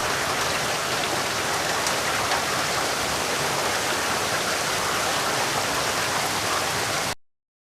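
Rain falling steadily, a dense even hiss of drops; it cuts off suddenly near the end.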